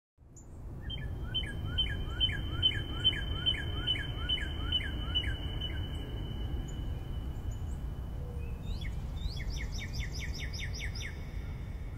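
Bird chirping in a repeated string of short calls, about two a second, then a quicker string of calls near the end, over a low steady rumble.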